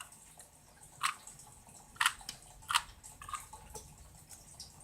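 Plastic Rubik's cube being twisted: about five short, sharp clicks at irregular intervals as the layers are turned.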